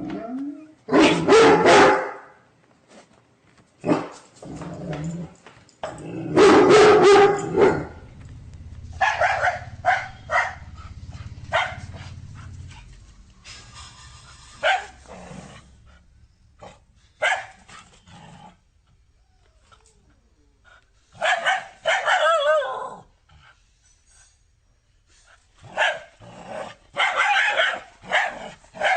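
Dog barking in irregular bursts of short barks, separated by quiet gaps of a second or two.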